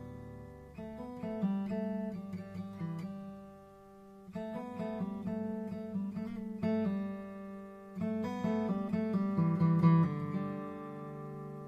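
Background music of plucked guitar notes in phrases, with short pauses about four seconds and eight seconds in.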